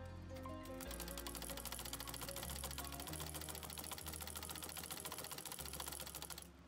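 Treadle-driven straight-stitch sewing machine doing free-motion embroidery: the needle stitches in a rapid, even run of clicks that starts about a second in and stops just before the end. Background music plays throughout.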